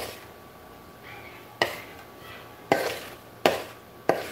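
A metal spoon scraping sticky chocolate cake batter out of a mixing bowl, knocking sharply against the bowl about five times at uneven intervals.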